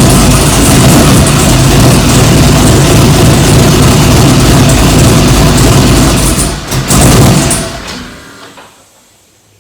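The pickup's engine running loudly, with a steady rumble, then dying away about eight seconds in.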